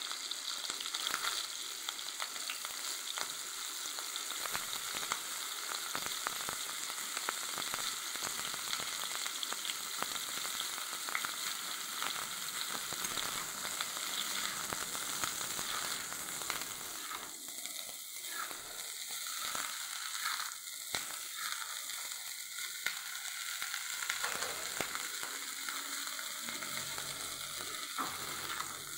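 Cauliflower florets frying in hot oil in a steel karahi: a steady sizzle with many small pops. A metal spatula scrapes and turns them in the pan now and then.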